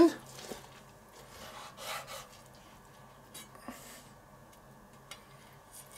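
Knife sawing through a bacon-wrapped Leberkäse on a wooden cutting board: faint, irregular scraping strokes, with a light tap about five seconds in.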